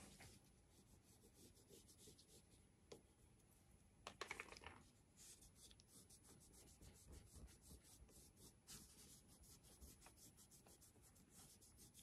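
Faint scratching of a wax crayon stroked across paper, with a brief louder rub about four seconds in, then quick repeated strokes through the second half.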